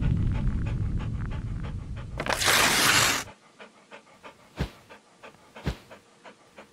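Dog panting in quick short breaths over a low rumble. A loud rushing whoosh comes about two seconds in. After about three seconds it drops to faint breaths and a few soft thumps.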